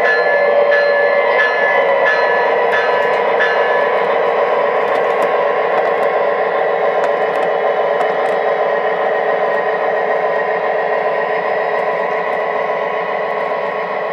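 O-gauge model freight cars rolling along the track: a steady rumble of metal wheels on rail, with regular clicks about every two-thirds of a second in the first few seconds, then a smoother roll that slowly fades.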